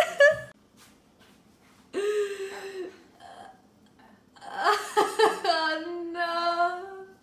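A young woman laughing in dismay, with wordless vocal cries: a short one about two seconds in, then a longer burst of laughter that trails into a long held cry.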